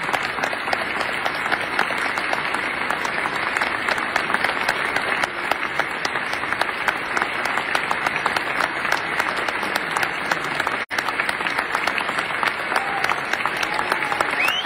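Large audience applauding: a dense, steady clatter of many hands clapping, broken by a very brief dropout in the recording about eleven seconds in.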